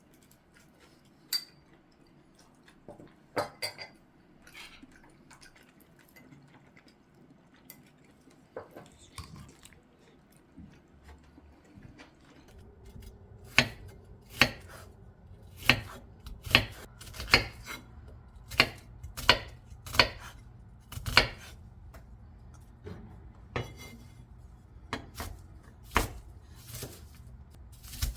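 Kitchen utensils and dishes clinking now and then. About halfway through, a knife starts chopping on a cutting board in regular strokes, roughly one a second, over a low steady hum.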